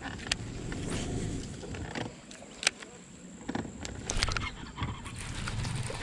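Scattered sharp clicks and knocks from the boat and baitcasting tackle over a low, steady rumble, while a small bass is being reeled in.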